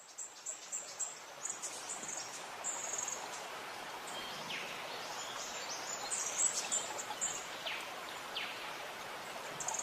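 Steady hiss of rain as the downpour eases off, with short high chirps and a few quick falling calls over it.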